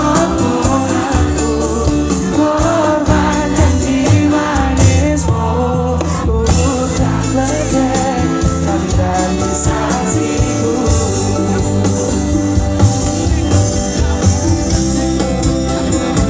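Live band playing a pop song, with a lead vocal over electric guitars, bass and drums.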